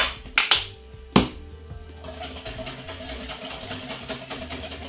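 Background music with kitchen utensil sounds from a sauce bowl: a few sharp knocks in the first second or so, then a fast, even run of ticks as the ketchup and sweet chili sauce are mixed.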